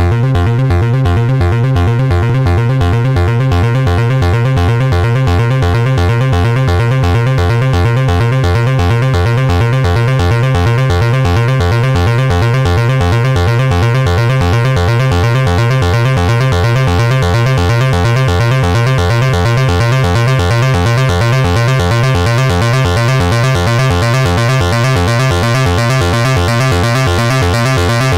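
Analog synthesizer music from a Behringer 2600: a fast, even repeating bass sequence of about three to four notes a second, its tone growing brighter over the second half.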